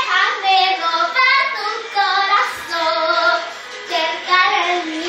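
A young girl singing a Spanish-language pop ballad, in several phrases of long held notes that bend in pitch.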